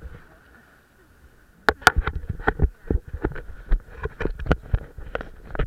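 A jet ski running over the water: a faint steady tone, then from about a second and a half in a rapid, irregular run of sharp knocks and splashes.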